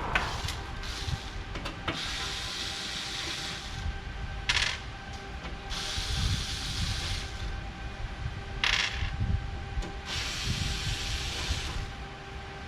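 Screws being unscrewed from a PC case's glass side panel: stretches of scraping, hissy turning, with small clicks and clinks of metal in between.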